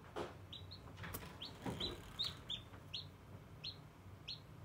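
Hatching chicken chick peeping over and over in short high cheeps, about two or three a second, with a few soft knocks in the first two seconds and a low steady hum underneath.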